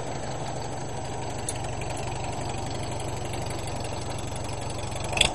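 1941 Farmall H tractor's four-cylinder gasoline engine running steadily with an even pulse just after starting, then cutting out with a sharp knock near the end: a bad start that does not hold.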